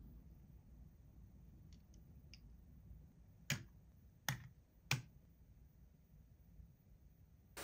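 A few faint ticks, then three sharp clicks or taps in quick succession about halfway through, over a low room hum.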